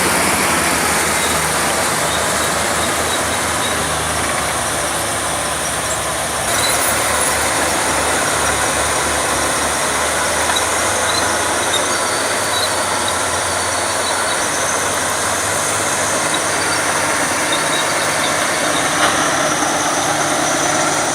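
Heavy diesel machinery running steadily, a loud engine rumble with a dense mechanical clatter over it; the character of the sound shifts about six seconds in.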